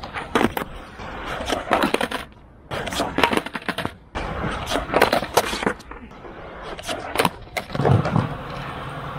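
Skateboard tricks on concrete: repeated sharp clacks of the deck's tail popping and the board slapping down on landings, several in quick succession, with the wheels rolling on the rough ground in between.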